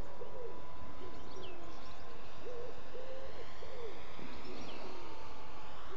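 A bird calling with a series of short low hooting notes: one at the start, then a run of three or four about two and a half seconds in.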